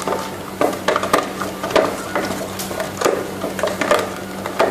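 A stirrer scraping and clicking against a bowl while a thick slime mixture is stirred, in irregular strokes, over a steady low hum.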